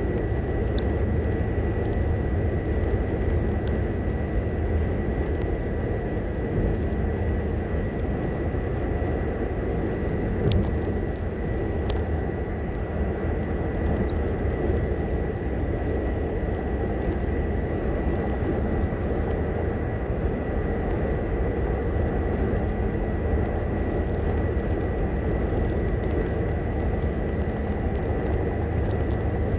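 Steady road noise heard inside a car cruising at highway speed: tyre and engine drone at a constant level, with a thin, steady high-pitched whine running under it.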